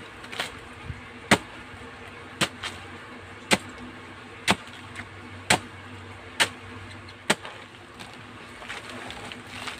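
Machete chopping banana trunk into pieces, about one sharp chop a second, the blade cutting through the soft, wet stem. The chopping stops near the end.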